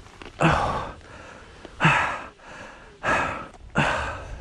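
A man gasping for breath after being winded: four heavy, ragged breaths about a second apart.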